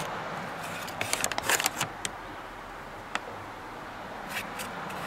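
A spoon spreading sauce over a raw salmon fillet on crinkly paper: a quick cluster of paper rustles and small clicks about a second in, one click near three seconds, and two more near the end.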